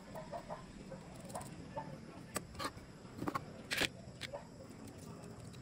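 Food-preparation handling sounds: a few sharp clicks and knocks, one a little longer than the rest, as calamansi are cut on a plastic cutting board and handled over a mesh strainer. Faint short calls sound in the background early on.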